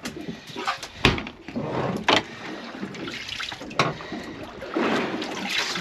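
Water splashing and sloshing around a small boat, with sharp knocks about one, two and nearly four seconds in, and a louder wash of water near the end.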